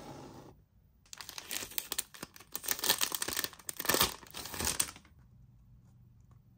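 Product packaging being crinkled and torn open: a dense run of sharp crackles and rustling lasting about four seconds, starting about a second in.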